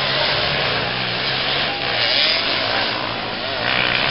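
Motocross bike engines buzzing and revving on a dirt track, with the engine note rising and falling.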